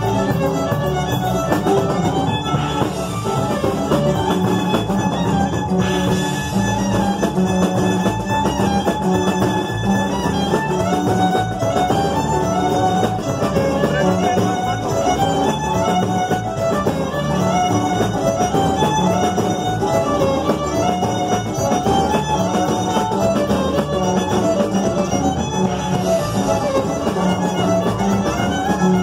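Live tierra caliente band playing a fast zapateado through a PA, a violin carrying the quick melody over bass and guitar.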